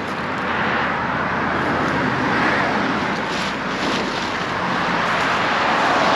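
Road traffic: vehicles passing on the road, a broad tyre-and-engine noise that swells and fades, loudest about two and a half seconds in and again near the end.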